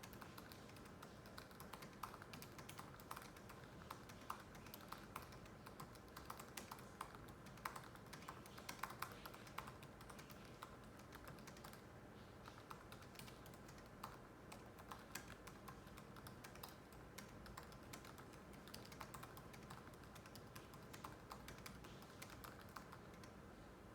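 Typing on a MacBook's built-in laptop keyboard: a quiet, continuous run of light key clicks, several a second.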